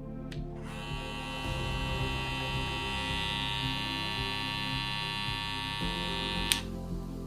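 Electric hair clipper switched on with a click, running with a steady even hum, then switched off with a click near the end.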